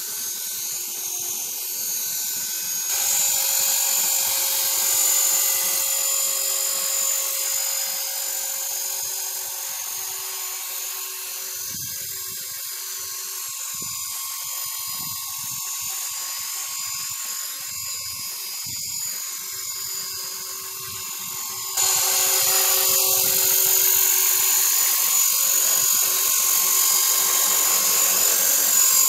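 Radio-controlled model helicopter's motor and rotor whining steadily in flight. It gets louder about three seconds in and suddenly louder again about three-quarters of the way through, as it comes close.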